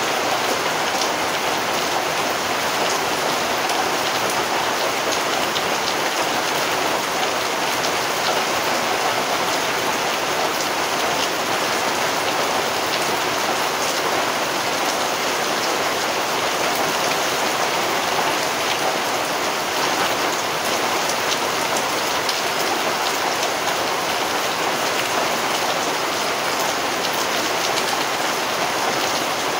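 Rain falling steadily: an even hiss with scattered small drop ticks, unchanging throughout.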